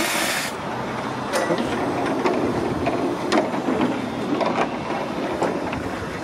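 Miniature railway turntable with its wooden deck being pushed round by hand under a small steam locomotive: a rumble with irregular clicks and knocks from the wheels and rails. A short hiss comes right at the start.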